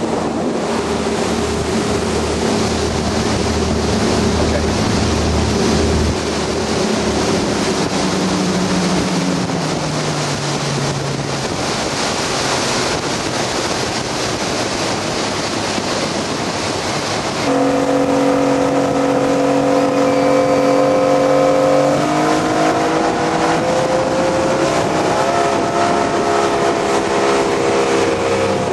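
A 45-foot Hatteras sport-fishing boat's engines running underway. At first they are heard on board along with wind and water rushing past the hull, and their pitch drops about a third of the way in. From about two-thirds through they are heard from alongside as the boat runs past at speed, a steady drone that slides lower near the end.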